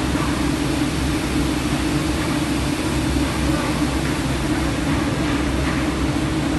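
Effe Pasha textile stenter machine running: a steady industrial drone with a low hum underneath, unchanging throughout.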